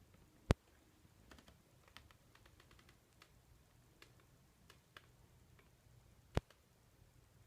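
Sharp clicks: two loud ones, about half a second in and near the end, with lighter scattered ticks between them.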